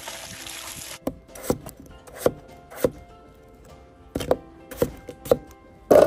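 A steady hiss cuts off about a second in. Then a knife chops on a wooden cutting board: about nine irregular strokes, roughly half a second apart, the last the loudest.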